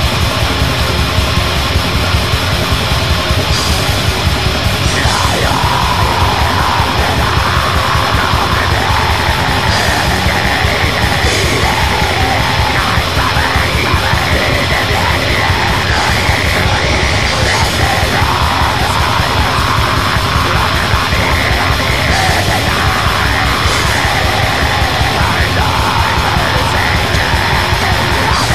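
Black metal recording: distorted guitars over dense, fast drumming, with harsh screamed vocals coming in about five seconds in.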